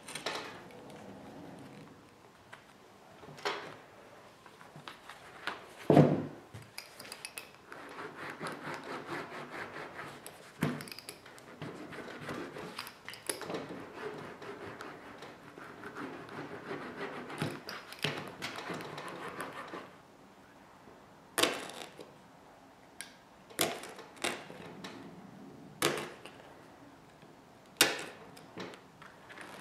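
Bench handling sounds of wrapping work: scattered knocks and a loud thump about six seconds in, then a long stretch of rubbing and scraping as a small hand roller presses carbon-fibre vinyl down onto the panel, followed by several sharp taps and clicks of tools on the bench.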